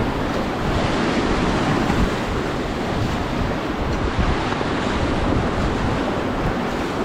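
Rushing whitewater of a Ganges river rapid around a raft, steady and loud, with wind noise on the microphone.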